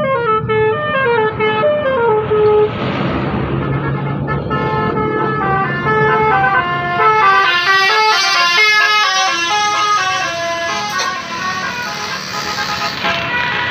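Bus 'telolet' musical air horns playing a quick tune of short stepped notes, starting with a falling run and then several horn tones overlapping in a busier melody.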